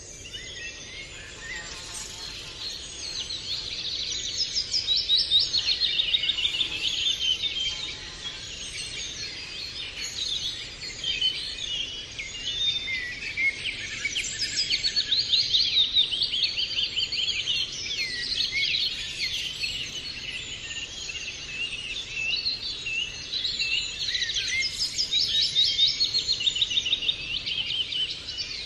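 Many small birds chirping and trilling together in a dense, continuous chorus that swells louder and fades back several times.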